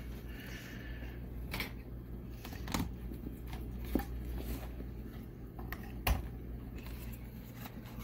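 Scattered light clicks and taps from handling a small plastic electronic module, a Mercedes ESL steering-lock emulator being picked up and plugged into its cable, with the sharpest click about six seconds in. A steady low electrical hum runs underneath.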